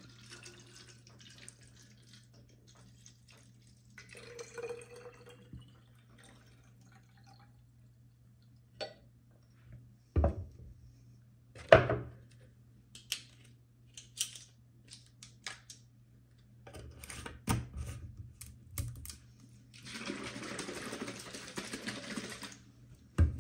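Water poured into a plastic detox-drink bottle, followed by scattered clicks and knocks of the bottle and its cap on a stone countertop, then about three seconds of liquid sloshing as the bottle is shaken near the end. A faint low hum runs underneath.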